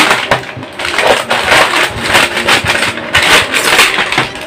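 A plastic snack packet crinkling as it is cut open with scissors and then tipped and shaken, with the crunchy fried snacks rattling out onto the table.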